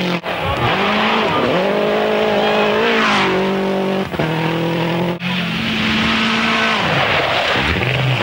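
Toyota Celica GT-Four rally car's turbocharged four-cylinder engine at full racing revs, its pitch dropping and climbing again several times as it shifts gear and lifts off. The sound breaks off abruptly a few times where separate shots are joined.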